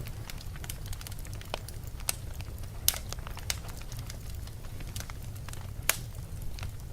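Fire in a fireplace crackling over a steady low rumble, with scattered sharp pops; two louder pops come about three seconds and six seconds in.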